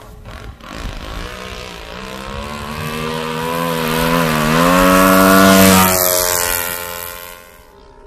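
Radio-controlled model airplane's engine and propeller at takeoff power, a steady buzzing note that grows louder as the plane runs down the runway and lifts off. The pitch dips briefly and rises again, then the sound fades away near the end.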